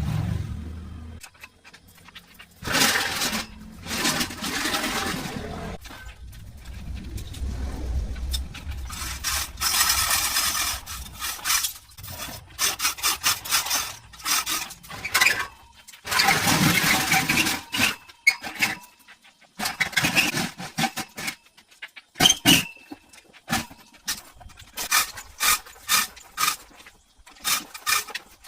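Hand repair work on a tractor: several scraping passages a few seconds long, then a run of short sharp knocks over the last few seconds.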